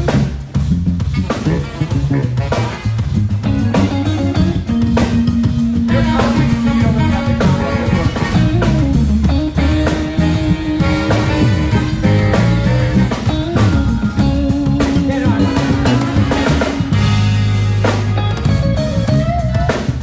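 A live band playing a groove: electric guitar over bass and a drum kit, with drum hits running steadily throughout.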